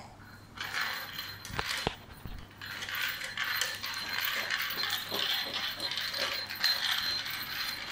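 Battery-powered plastic toy ball rattling with a steady mechanical clatter as it rolls over a tiled floor, with small plastic clicks.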